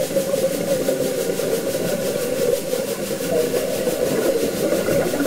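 Underwater ambience picked up through a camera's underwater housing: a steady, churning low rumble that holds an even level throughout.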